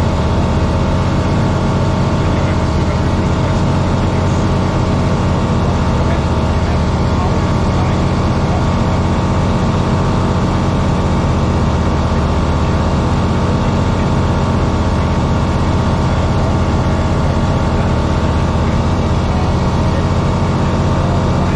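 Grob G109B motorglider's 100 hp FADEC-controlled Rotax 912 four-cylinder engine and constant-speed MT propeller running steadily in flight, heard inside the cockpit as a loud, even drone with several fixed tones that do not change.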